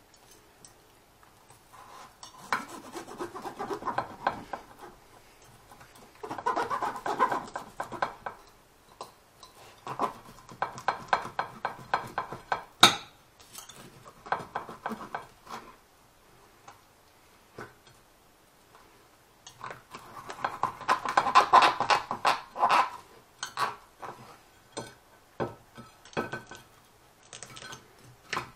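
Table knife sawing through crisp-skinned roast goose, with the knife and fork scraping and clicking on a ceramic plate in several bursts of rapid strokes and one sharp clink about 13 seconds in.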